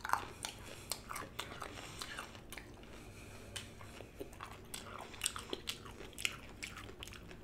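Close-miked biting and chewing of a raw cauliflower floret: irregular crisp crunches, one or two a second.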